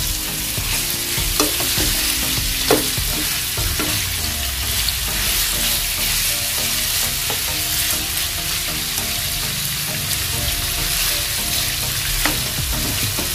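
Raw chicken pieces sizzling in hot oil in a nonstick frying pan as they are stirred and turned with a spatula, the start of browning the chicken. A few sharp clicks of the spatula against the pan.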